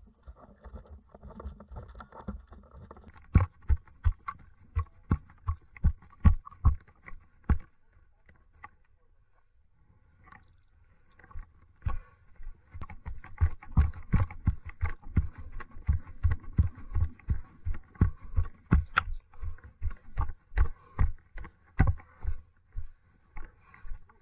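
Walking footsteps, about two a second, heard as low thumps through a body-worn camera. They stop for a few seconds near the middle and then resume.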